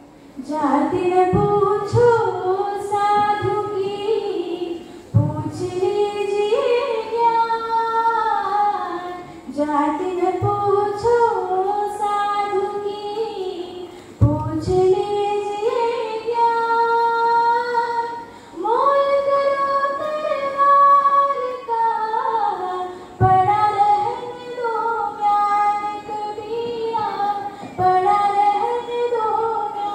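A girl singing solo into a microphone without accompaniment, in long held phrases with short breaths between them.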